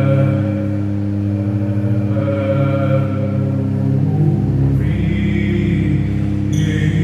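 Church pipe organ playing sustained chords, including a low bass note. The chord changes about four seconds in and again near the end.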